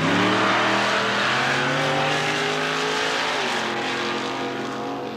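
Two drag-racing cars launching off the line side by side at full throttle. Their engine pitch climbs, drops once about three and a half seconds in as the cars run on, and the sound fades as they pull away.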